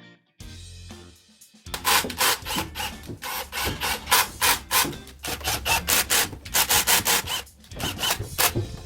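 Rapid back-and-forth scraping strokes, about three a second, starting a couple of seconds in over a low steady hum.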